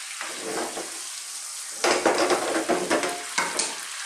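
A whole fish sizzling in hot olive oil and lemon juice in a frying pan. From about two seconds in, a slotted spatula scrapes and knocks against the pan for a second or two as the fish is worked at for turning.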